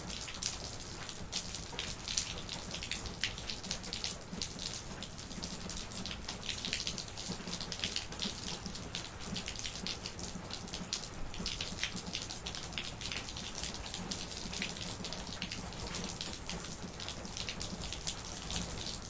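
Steady rain, with many dense, irregular drops pattering on a surface over a continuous hiss.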